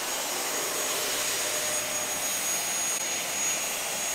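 Dyson canister vacuum cleaner running: a steady rushing hiss with a thin high whine.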